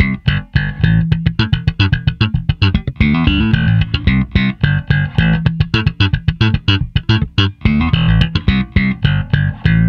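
Electric bass played through the compression channel of a Caline Scuru S8B mini bass amp: a busy line of short, quick plucked notes.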